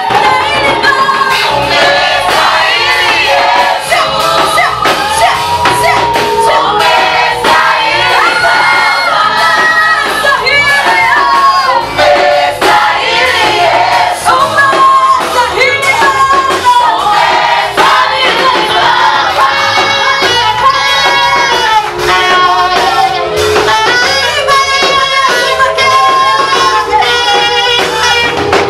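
Gospel song with voices singing a melody over instrumental backing and a steady beat.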